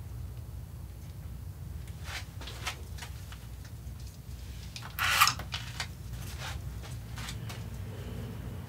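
Hands handling small parts of an angel-eye halo ring and its wires: scattered faint clicks and rubbing, with one louder brief rustle about five seconds in, over a steady low hum.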